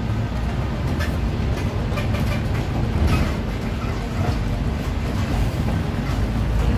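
Ride noise of a city bus on the move: a steady low rumble from the engine and road, with a few brief rattles about a second and three seconds in.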